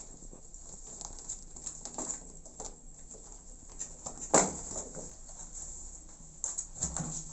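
Small kittens scrabbling over denim jeans: light scratching, rustling and tapping, with one sharp knock about four seconds in.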